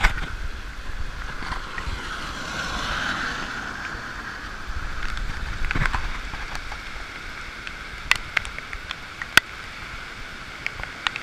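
Rain falling and bicycle tyres hissing on a wet road, with a low rumble underneath. A few sharp ticks stand out in the second half, the loudest about nine seconds in.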